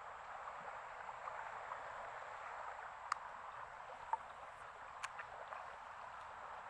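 Running floodwater, a steady rushing hiss, with a few sharp clicks in the middle.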